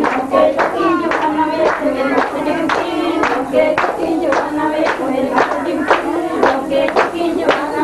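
A group singing with steady rhythmic hand clapping, about three claps a second, keeping time to the song.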